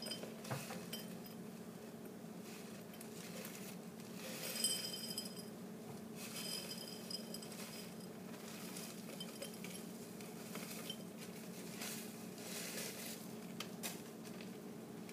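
Crushed peppermint candy being tipped into a mixing jar: small pieces pattering and clinking against the jar in scattered bursts, the loudest clink about four and a half seconds in.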